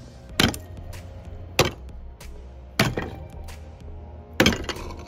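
Steel ice chisel (Eskimo spud bar) tapping lightly on a one-inch slab of solid ice lying on a wooden deck, breaking it apart. Four sharp strikes come a little over a second apart.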